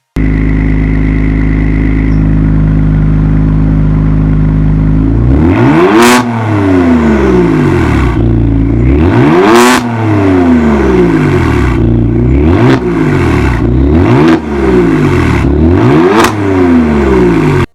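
Kia Stinger's engine through an aftermarket Kunstwerk catback exhaust, idling steadily for about five seconds, then revved up and let fall back about five times.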